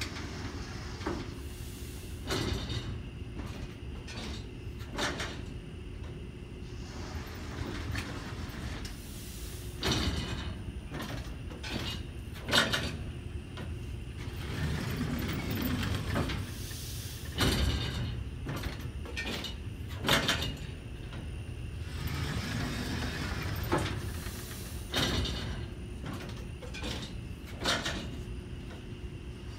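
Alloyd Brands Aergo 8 Duo rotary blister sealer running, with a sharp mechanical clunk about every two and a half seconds over a steady machine hum, and stretches of hissing in between.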